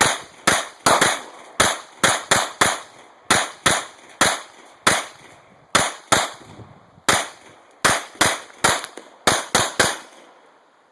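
A long string of pistol shots from a Glock 23 .40 S&W handgun, fired quickly at an uneven pace of two to three shots a second, each a sharp crack with a short ring. The shooting stops about ten seconds in.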